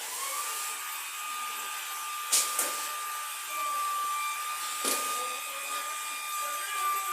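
Small electric power-tool motor whining steadily at one pitch, with a couple of short knocks, and winding down in pitch as it stops near the end.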